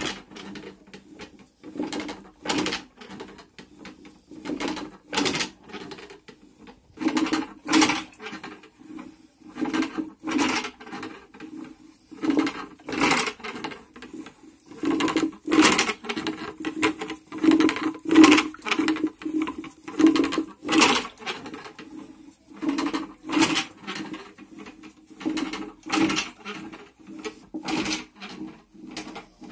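Hand-pulled wooden rope churn spinning back and forth in a clay pot of milk curd, a steady rhythm of a couple of strokes a second as the stick turns in its holder and beats the curd.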